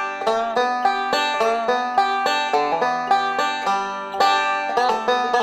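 Five-string resonator banjo picked with finger picks in a steady alternating-thumb roll, a plucked old-time melody with pull-offs and a few short sliding notes.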